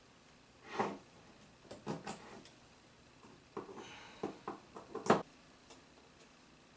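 A series of irregular knocks and clicks from small parts of a 3D printer kit being handled and fitted together, the loudest just after five seconds in.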